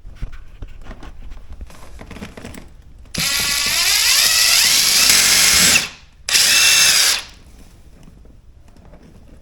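Electric drill run twice: a long burst of about two and a half seconds, its motor pitch rising as it spins up, then a shorter burst of about a second, with light handling clicks before the first.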